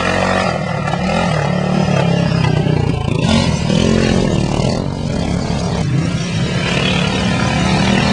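Souped-up racing lawnmower engines running, their pitch rising and falling.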